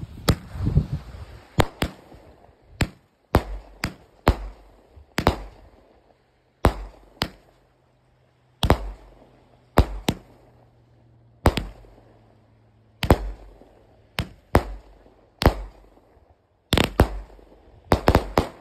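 A 906 Fireworks Lil Uber firework cake firing: a long string of sharp bangs as its small aerial shells burst, about one to two a second and often in quick pairs, each trailing off.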